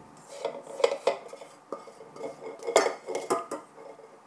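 Spatula scraping and knocking against a stainless steel mixing bowl, in irregular strokes, to get the last of the chocolate cake batter out.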